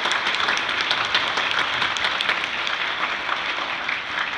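A congregation applauding: many hands clapping in a steady, dense patter that begins to thin out near the end.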